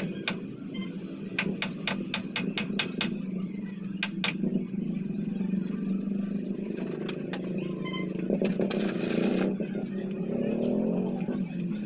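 Hammer blows on a wooden stud frame, quick runs of sharp knocks in the first four seconds and a few more later, over a steady low drone; a brief scraping hiss about nine seconds in.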